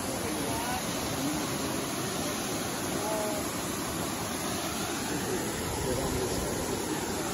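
Aguasabon Falls rushing down into its rock gorge: a steady, even wash of water noise that holds level throughout.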